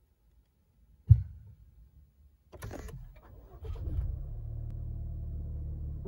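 A sharp thump about a second in, then the Lexus IS 300's 2.0-litre turbocharged four-cylinder cranks and fires at about two and a half seconds, flares briefly and settles into a steady cold-start idle.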